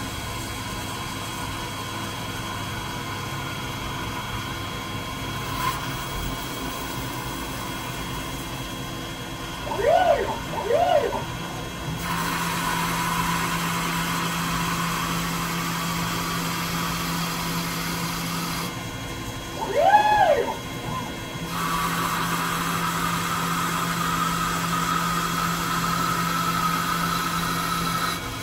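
CNC lathe turning a Teflon part: a steady machine hum, with short whines that rise and fall in pitch as the axes make quick moves, twice about ten seconds in and once near twenty seconds. Two long stretches of steady cutting, each louder, with an even hum tone and hiss while the tool feeds along the plastic.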